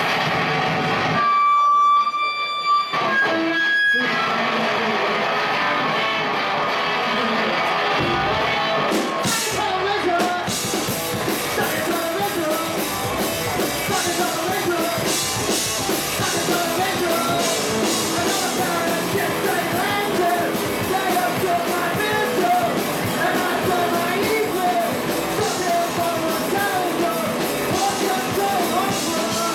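Live rock band on electric guitars, bass guitar and drum kit. Distorted guitar noise and a few held guitar tones open the passage, then the low end comes in and the full band plays from about ten seconds in.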